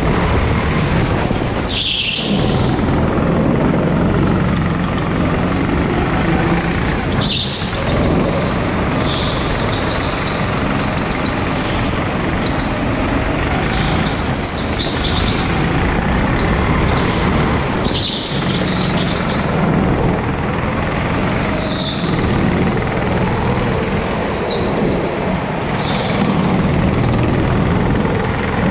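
Go-kart engine running hard, heard from the driver's seat, with high-pitched tyre squeals coming and going several times as the kart is thrown through the corners.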